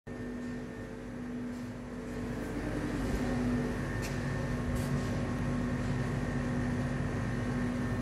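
Commercial pharmacy refrigerator's refrigeration unit running with a steady, even hum, with two light clicks around the middle.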